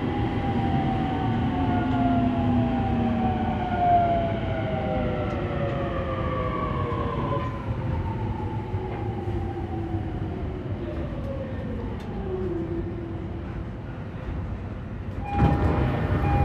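Traction motor and inverter whine of an E231-800 series electric train heard from above the motor, several tones falling steadily in pitch as the train slows, over the rumble of wheels on rail. About fifteen seconds in the noise swells suddenly louder.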